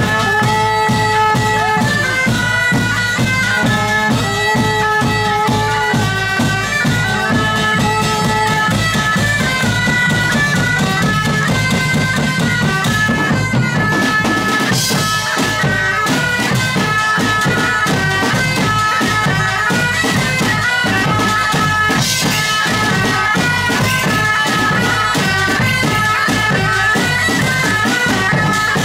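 Several medieval bagpipes playing a folk melody together over a steady drum beat. A lower pipe part drops out about nine seconds in, leaving the higher pipes.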